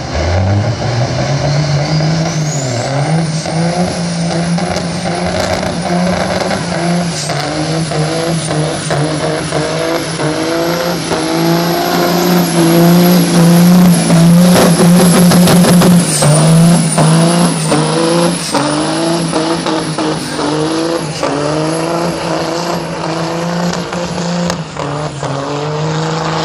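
Western Star semi truck's diesel engine at full throttle, accelerating hard down a drag strip. Its pitch climbs and drops back over and over as it works through the gears, with a high whistle rising and falling in step. It is loudest as it passes close by about halfway through, then pulls away.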